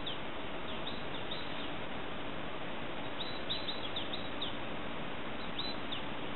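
Small birds chirping: short, high, falling chirps in a few scattered clusters over a steady hiss.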